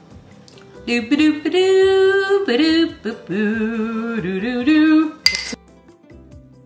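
A woman sings a short tune of held, wavering notes over soft background music. Near the end a metal spoon clinks once against the glass dessert dish.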